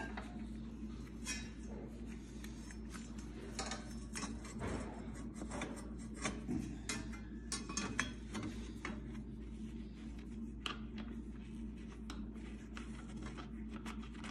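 Light metallic clinks and rattles, irregular and scattered, as a table saw's wrench and spare blades are handled and stowed in the storage on the saw's side, over a steady low hum.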